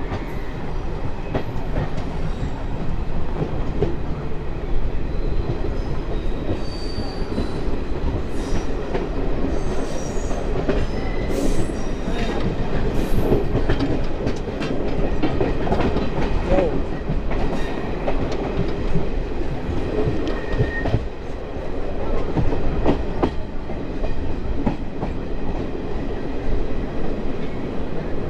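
DEMU (diesel-electric multiple unit) passenger train running along the track, heard from on board: a steady running noise with wheels clicking and knocking over rail joints, and a few brief wheel squeals.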